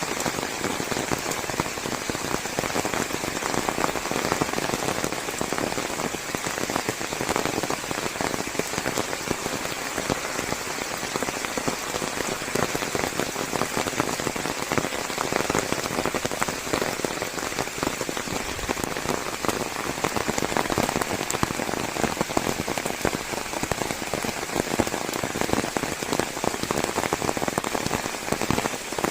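Steady rain falling on forest leaves, a dense continuous patter of drops.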